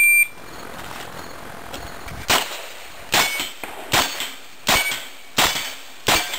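A shot timer gives one short beep, then a revolver fires six shots in a steady string, one roughly every three-quarters of a second.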